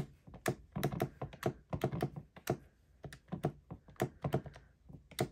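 Calculator keys pressed one after another in quick, uneven taps, about three or four a second, as a long sum is keyed in.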